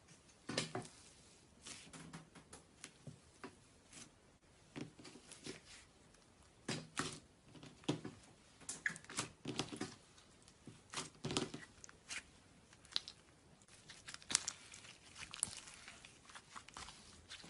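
Slime being squeezed and stretched by hand, making irregular crackling and popping.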